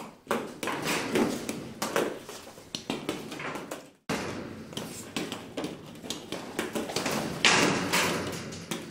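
Hollow plastic ball-pit balls clattering: many light, irregular knocks and taps as they drop and bounce. There is a brief break about halfway through.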